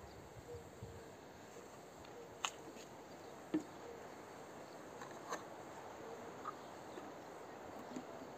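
A plastic oil bottle set down on paving stones: a light knock about three and a half seconds in, with a few fainter clicks around it, over a quiet background with a faint on-and-off tone.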